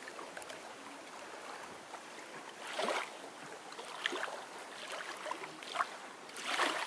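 Small lake ripples lapping onto a gravel shore: a steady wash with light splashes, swelling louder about three seconds in and again near the end.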